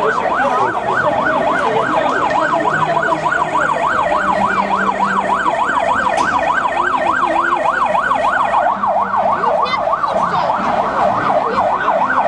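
Siren in a fast yelp, its pitch sweeping up and down about three to four times a second, continuous and steady.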